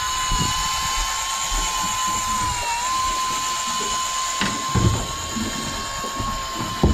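Electric deep-drop fishing reel winding under load, its motor whining steadily at one high pitch. The pitch sags briefly near the three-second mark as the load rises, then steadies again. A few low knocks can be heard underneath.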